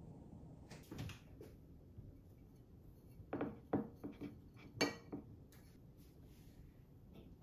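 Glass flower vases handled and set down on a kitchen countertop: a handful of short glassy knocks and clinks, the loudest just before five seconds in.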